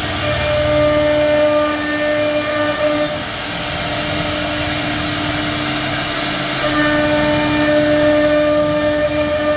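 CNC router spindle running with a steady whine over a hiss of cutting noise as it carves a design into a door panel. The higher tones of the whine grow stronger early on and again in the second half, as the cutting load changes.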